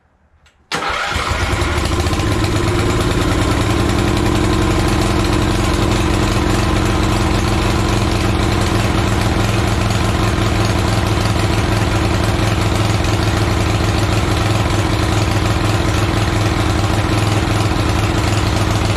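Small gasoline engine of a Toro Wheel Horse 210-5 lawn tractor starting up on its first start after sitting for over ten years. The engine catches suddenly about a second in and settles into a loud, steady run.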